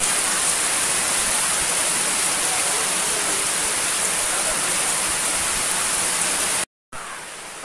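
Heavy rain pouring steadily onto palm fronds and a waterlogged yard, a dense even hiss that cuts off abruptly near the end.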